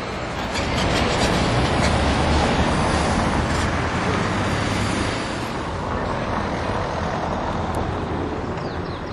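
Road traffic: a city bus drives past close by and a motorcycle passes, the engine noise with its low hum swelling about a second in and easing off after about five seconds.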